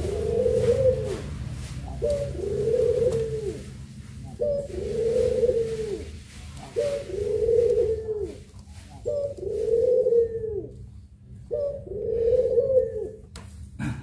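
Puter pelung, a domesticated barbary dove bred for its long coo, cooing in a cage: six coos about two seconds apart, each a short note followed by a long drawn-out one. A sharp knock comes near the end.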